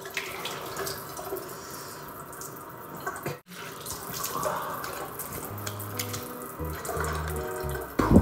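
A tap runs into a sink, splashing as hands and then a face are rinsed under the stream. The sound cuts out for an instant about a third of the way in. Low music notes come in over the last few seconds.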